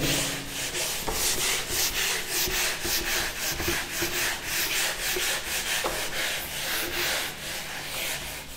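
Whiteboard eraser wiping a whiteboard clean: quick back-and-forth rubbing strokes, about three a second.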